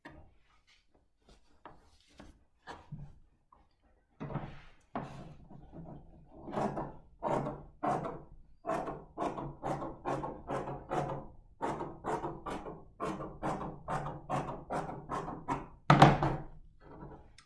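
Fabric scissors cutting through layered jacket fabric and lining on a tabletop, snipping about three times a second from about four seconds in. Near the end the scissors are set down on the table with a loud thunk.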